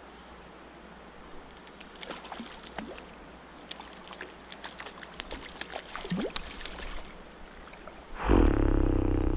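A hooked wild brown trout splashing at the surface again and again as it is played in, over the steady rush of the river. Near the end comes a sudden loud noise of a little over a second that cuts off sharply.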